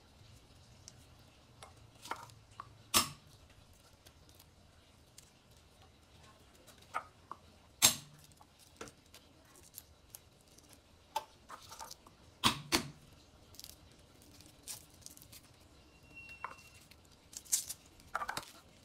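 Garlic cloves being smashed one at a time on a wooden cutting board: a handful of sharp knocks several seconds apart, with faint clicks and rustles of peeling in between.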